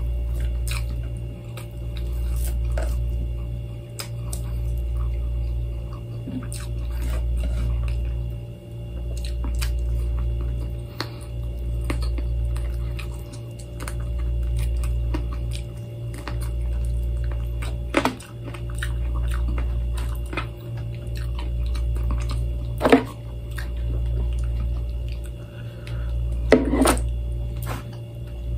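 Eating by hand: fingers working through rice and food on a paper plate, with faint chewing, a few sharp clicks in the second half, and a low hum that swells and fades about every two seconds.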